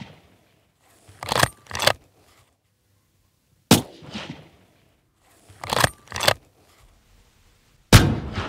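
Scoped bolt-action rifle fired twice, about four seconds apart, each shot with a short echoing tail; in between, the bolt is worked back and forward after each shot, two sharp clacks about half a second apart. These are rounds of a three-to-five-shot zeroing group.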